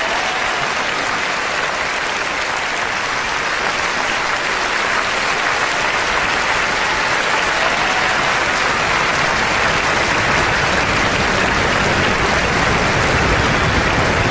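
Large concert audience applauding, a dense, steady clapping of many hands throughout.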